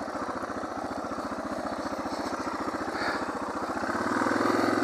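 Suzuki DR650SE's single-cylinder four-stroke engine chugging at low revs, with an even, rapid pulse. About four seconds in the throttle opens and the engine gets louder and steadier.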